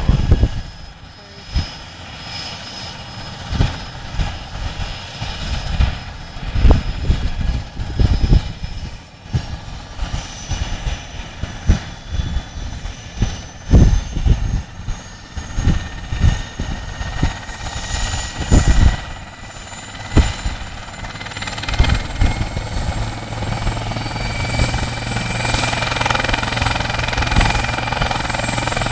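Southstar medical helicopter's turbine whine and rotor, the whine slowly rising in pitch and the whole sound growing louder over the last few seconds. Irregular low thumps come through as well.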